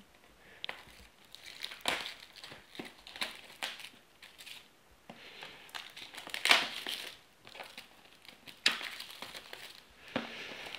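Clear plastic shrink wrap being pulled, torn and crumpled off a cardboard retail box by hand. It makes irregular crinkling rustles, louder at about two seconds in, around six and a half seconds, and again near nine seconds.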